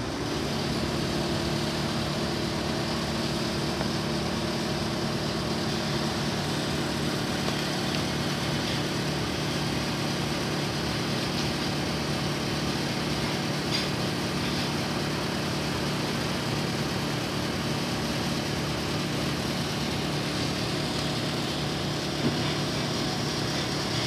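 Air-conditioning units running, a steady mechanical drone with a low multi-tone hum under a broad whoosh of fan noise.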